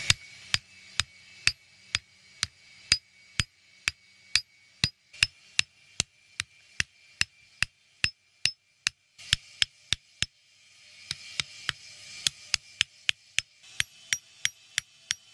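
Hand hammer striking a red-hot iron bar on an anvil, with a ringing clang on each blow, about two blows a second. There is a short break about nine seconds in, then the blows come quicker near the end.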